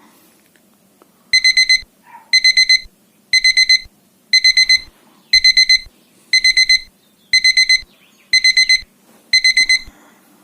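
Electronic alarm beeping: groups of four quick high-pitched beeps, repeated about once a second, nine times.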